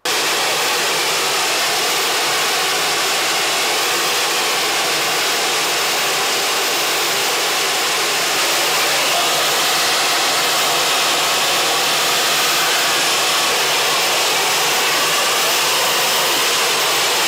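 Small turbojet engine running steadily at high power: a loud, even rush of air with a thin, high turbine whine over it. The level steps up slightly about halfway through.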